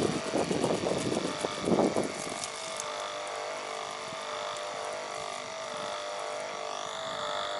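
Kärcher K2.900 Silent pressure washer running with a steady hum from its motor and pump while its jet sprays water into a plastic sink. Louder, irregular splashing in the first two seconds or so.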